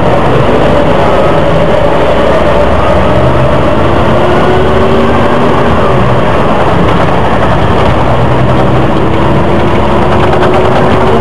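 Volvo Olympian double-decker bus under way, heard from inside on the upper deck: its engine and drivetrain run loud and steady, with a faint whine that slowly rises and falls in pitch.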